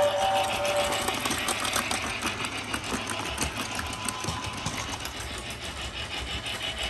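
Lionel Ready-to-Play Hogwarts Express battery toy train running on plastic track: a small motor whirring with a rapid clatter of lightweight plastic wheels on the rails. The tail of its whistle sound stops about a second in.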